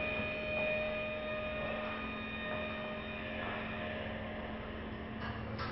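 Electroacoustic improvisation on devices and machines: a steady drone of several held tones over a low hum and hiss, with a short noisy rasp near the end.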